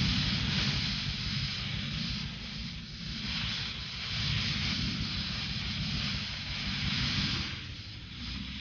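Lo-fi black metal: a dense wash of distorted guitar over fast, busy drumming, swelling and dipping every couple of seconds.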